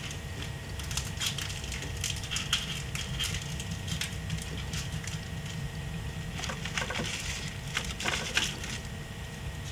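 Plastic wrapper of a small cereal-box Pokémon card pack crinkling and tearing as it is opened by hand: a steady run of crackles, with a few louder bursts of rustling in the last third.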